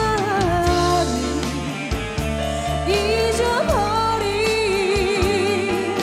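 A woman singing a Korean song live into a handheld microphone over backing music. From about halfway through she holds one long note with a wavering vibrato.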